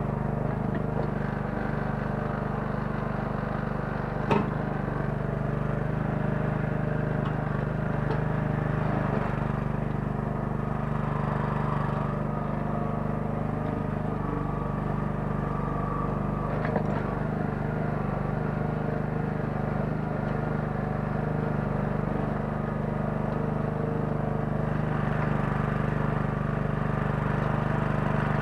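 The 9 hp engine of a Kellfri towable mini excavator running steadily at constant speed, with two short sharp knocks, about four seconds in and again near seventeen seconds.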